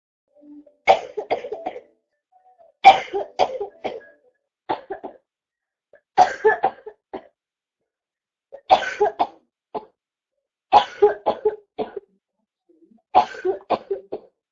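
A girl's wet, chesty cough from a chest cold, in seven separate fits, each a loud cough followed by a few weaker ones, with short silent gaps between.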